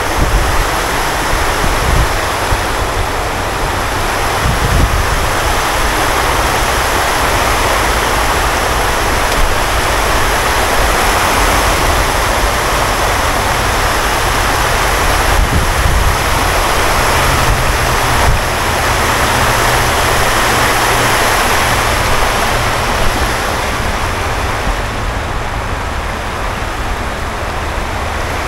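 Water rushing steadily over a low concrete weir and down its stepped, rocky spillway: a loud, continuous wash.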